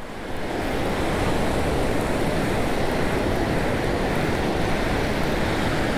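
Ocean surf washing over a shallow sandy beach: a steady rushing hiss of breaking waves and foam, swelling a little about half a second in.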